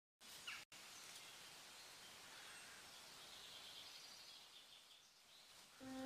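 Near silence: a faint steady hiss of background ambience, with a faint chirp about half a second in. A held musical note begins just before the end, the start of soft background music.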